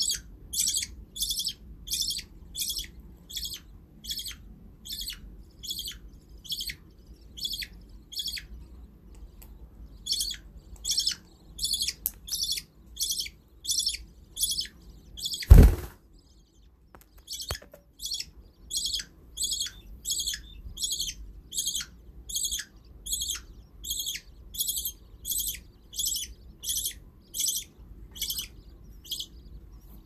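Budgerigar chicks begging while being fed: a steady, even run of short, high chirps, a little over two a second. About halfway through, a single loud knock cuts in, and the chirping stops for about a second before resuming.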